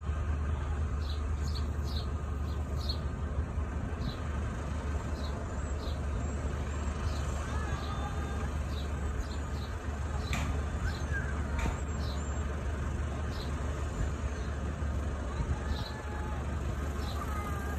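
Small high-wing single-engine airplane's piston engine running at taxi idle, a steady low drone, with short high chirps throughout.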